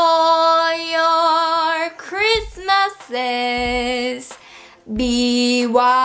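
A young woman singing unaccompanied in long held notes that waver slightly, broken about two seconds in by a quick run of sliding notes and by a short pause a little past four seconds.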